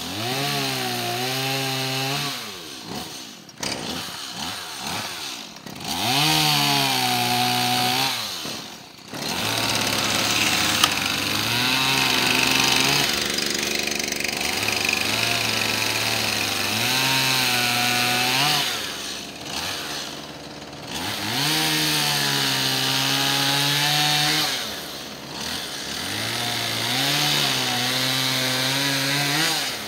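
Gas chainsaw cutting up the branches of a fallen tree, revving up for each cut and dropping back between cuts, about half a dozen times.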